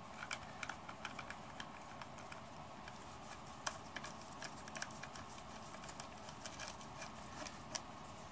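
Light, irregular metallic clicks and ticks as a screwdriver turns a greased through-bolt into a 10MT starter motor's housing, tool tip and bolt knocking against the metal case.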